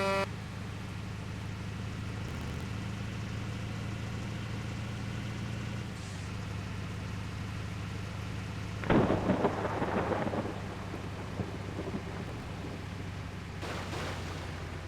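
Water tanker truck's engine drones steadily. A loud, rough rattling rumble comes about nine seconds in and lasts a second or so. At the very start, the last note of a multi-tone telolet horn cuts off.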